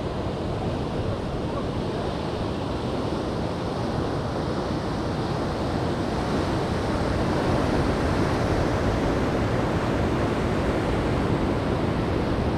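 Ocean surf breaking and washing in against a rocky shoreline, a steady rush that swells a little about two-thirds of the way through.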